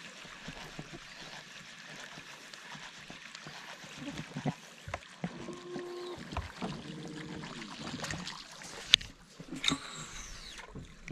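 Fishing tackle being worked on a boat: a baitcasting reel retrieving line with scattered knocks and clicks, a brief pitched sound in the middle, and a cast near the end with the spool's whir falling away as it slows.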